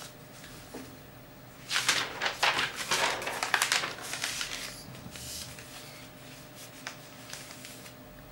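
A burst of rustling and clattering from things being handled on a desk, lasting about two seconds, followed by a couple of single clicks.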